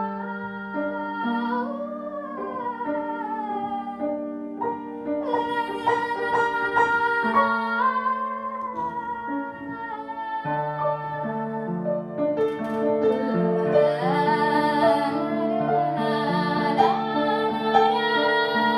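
Slow chamber music for cello and piano: long held low notes under a melody with vibrato, with piano chords, and a woman singing.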